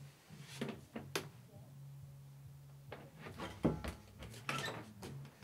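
A few soft knocks and bumps of a person moving about and leaning back against a bedroom wall beside a door, the loudest about three and a half seconds in, over a steady low hum.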